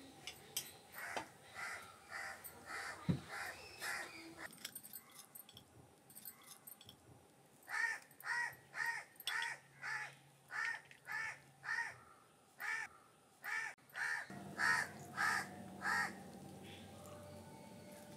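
A crow cawing over and over. A few calls come early, then a long run about two calls a second through the second half. There is one sharp knock about three seconds in.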